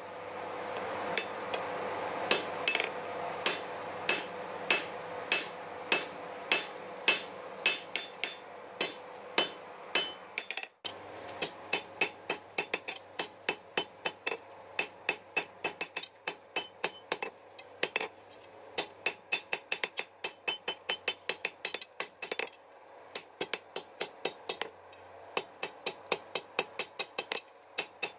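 Hand hammer striking steel on an anvil in steady forging blows, about two a second over a steady rushing background noise. After a short break about eleven seconds in, the blows come faster, about three a second.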